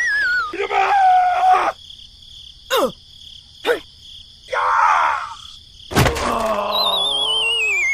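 Edited-in comic sound effects: a wavering falling whistle near the end, short groaning voice-like sounds, and a couple of quick falling swooshes.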